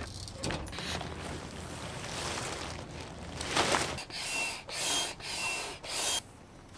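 Gear rattling and knocking as it is handled, then a hand pump inflating a wing-foiling wing: four quick strokes about two-thirds of the way in, each a rush of air, some with a faint thin whistle.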